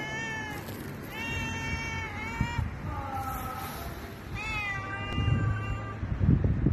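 Tabby-and-white cat meowing: four drawn-out meows, the third one lower in pitch. Low rumbling thumps come in near the end, louder than the meows.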